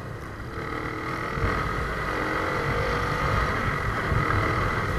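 RKS150 motorcycle engine running under way with wind rushing over the camera's microphone. The engine note rises slowly as the bike gathers speed, and the low rush grows louder about a second and a half in.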